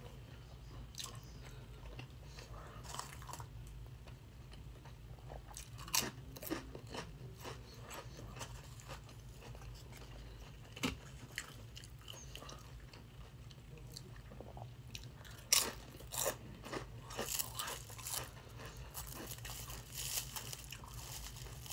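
A person chewing a burrito, with scattered moist clicks and smacks of the mouth. A denser run of louder clicks comes about fifteen to eighteen seconds in. A faint steady low hum lies underneath.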